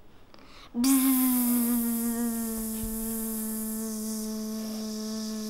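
A child's voice making one long, held buzzing 'zzz' like a mosquito's whine, starting about a second in at a steady pitch that sags slightly.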